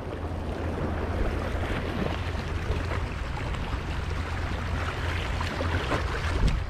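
Wind buffeting the microphone as a steady low rumble, over small waves washing against the shoreline rocks.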